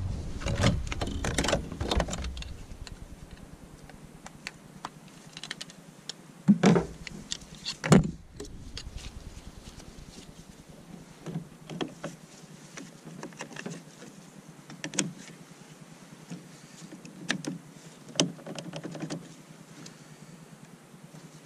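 Jump-starter clamps and leads being handled and clipped onto a car battery. Scattered clicks and rattles, busiest in the first two seconds, with two louder knocks about seven and eight seconds in.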